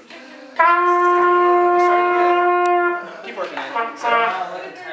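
Trumpets holding one sustained note in unison for about two and a half seconds, starting suddenly about half a second in and cutting off together.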